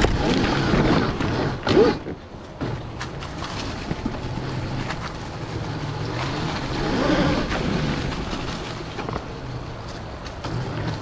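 Electric dirt bike being ridden, heard at the rider's head: wind rushes past over a low hum from the electric motor and drivetrain, with scattered knocks from the bike. The rushing swells about a second in and again around seven seconds.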